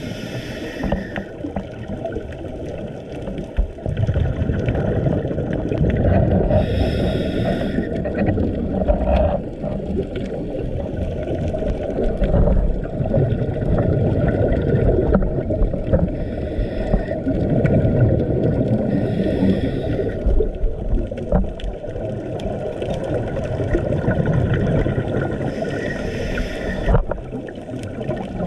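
Underwater noise: a steady low rumble of moving water. Over it come several bursts of hissing, crackling exhaust bubbles from a scuba regulator, a few to about ten seconds apart.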